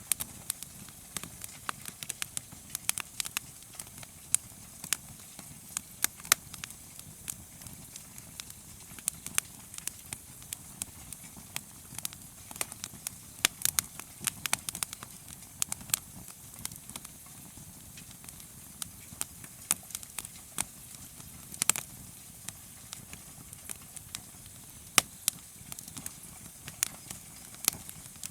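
Wood campfire crackling: a steady soft hiss with sharp, irregular pops and snaps, sometimes several in quick succession.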